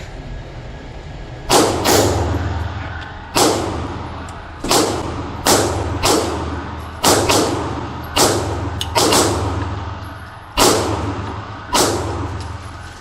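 Glock 43 pistol with a 43X slide firing a string of 9mm shots, one-handed, at an irregular pace of roughly one per second. Each sharp crack rings on briefly after it.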